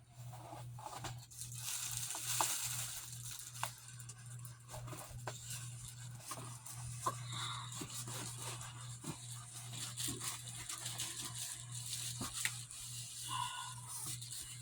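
Packaging rustling, crinkling and scraping in a run of small irregular sounds as a mini fridge is worked out of its box, over a low steady hum.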